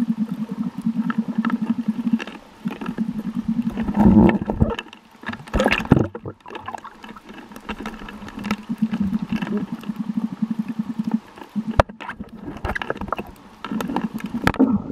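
A boat motor running, heard through the water as a steady low buzz. Splashing and bubbling noise breaks in about four to six seconds in and again near the end.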